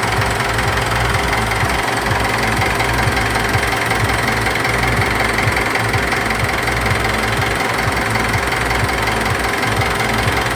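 Mitsubishi Pajero Sport diesel engine idling steadily with its usual diesel knock, running on Liqui Moly diesel purge cleaner drawn from a bottle during an injector and fuel-system purge.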